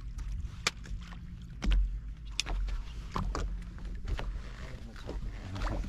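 Small fishing boat drifting on a lake: a low rumble of water against the hull, with many short sharp clicks and knocks as fishing gear is handled aboard.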